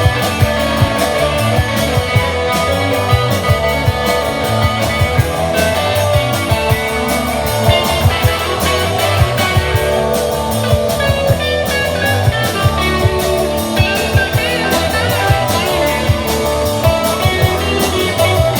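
Rock band playing live: guitar over a steady drum-kit beat.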